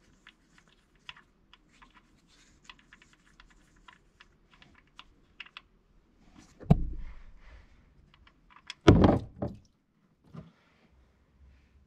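Rapid, irregular light clicking of a wrench turning the engine oil drain plug out, then two heavy thuds about two seconds apart and a lighter knock near the end.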